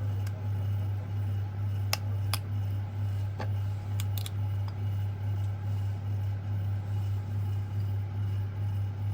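Steady low electrical hum, with a few light, sharp clicks of small tools on a phone's parts at irregular moments in the first half.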